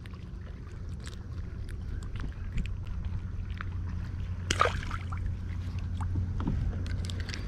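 Kayak on open water: a steady low rumble of wind and water around the hull, with faint clicks of fishing tackle being handled and one brief sharper sound a little past halfway.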